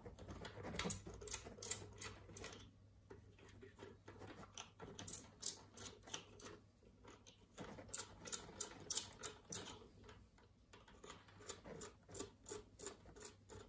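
Small screwdriver undoing the body screws on the underside of a plastic OO-gauge Bachmann Class 66 model locomotive: irregular light clicks, ticks and scrapes of the tool and the handled model, coming in clusters with short pauses between.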